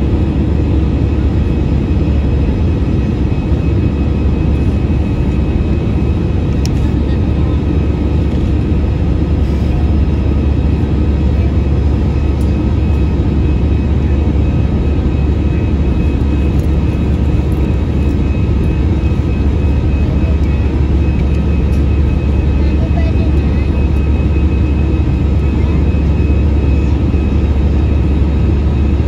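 Steady cabin noise inside an Airbus A321 climbing after takeoff: a deep, even rumble of the engines and rushing air, with faint steady whining tones above it.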